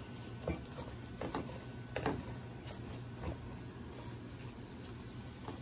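Wooden spoon stirring sautéed vegetables in a granite-coated nonstick pan, with a handful of short scrapes and knocks of the spoon against the pan over a steady low hum.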